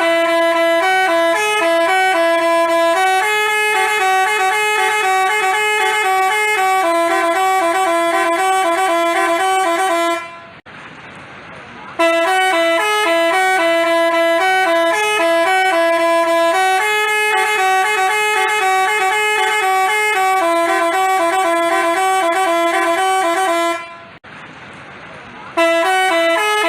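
Telolet basuri musical bus horn playing a tune of held, stepped notes. The phrase lasts about ten seconds and is played twice, with a break of about a second and a half before each repeat.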